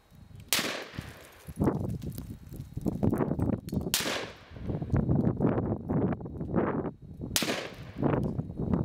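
Three pistol shots fired at a target 100 yards away, about three and a half seconds apart, each a sharp crack followed by a long rumbling tail.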